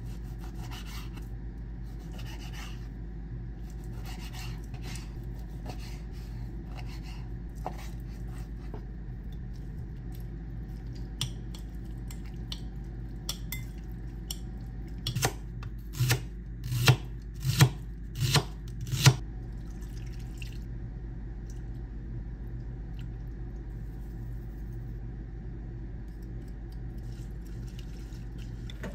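A knife slicing raw chicken on a plastic cutting board, with light scattered taps and scrapes. About halfway through, chopsticks clink sharply against a glass bowl, around eight times in a few seconds, while stirring the chicken in its marinade. A steady low hum runs underneath.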